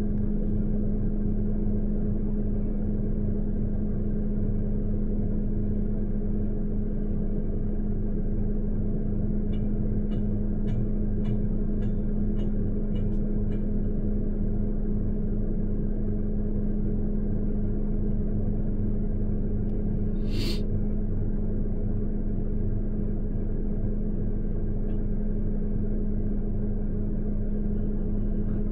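Steady engine drone with a constant low hum. About a third of the way in come a quick run of faint metallic clanks, about two a second, from hand post drivers striking steel fence posts. One short, sharp noise comes about two-thirds of the way in.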